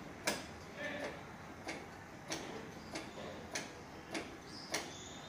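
Royal Enfield Bullet Standard 350's clutch lever being squeezed and released over and over, clicking about every two-thirds of a second. This is the clutch pumped repeatedly as part of a cold-start routine, done before kicking the engine over.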